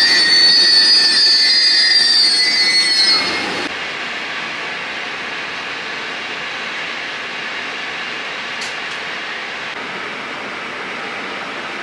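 Joban Line electric train at a station platform, its wheels squealing loudly with several high ringing tones. About three and a half seconds in the squeal cuts off to a quieter, steady running noise.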